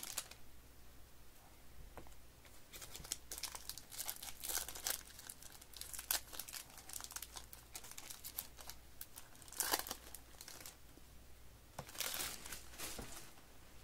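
Foil wrappers of Topps baseball card packs crinkling and tearing as they are ripped open by hand, in irregular bursts, with louder bursts about ten seconds in and again near the end.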